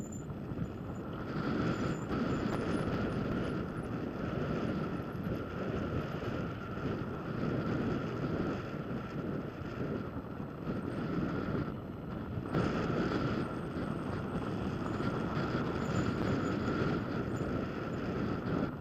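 Wind rushing over the microphone of a camera on a mountain bike rolling down bare granite, with the rumble of the tyres on the rock and a steady high hum. The rush drops briefly about twelve seconds in.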